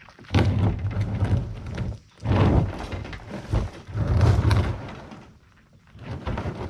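Plastic kayak hull scraping and knocking as it is slid down a steep dirt bank, in three rough bursts.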